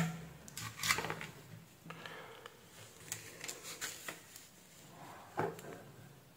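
Handling noise from a small circuit board and a soldering iron being picked up and positioned: a sharp tap at the start, then a few light clicks and rustles.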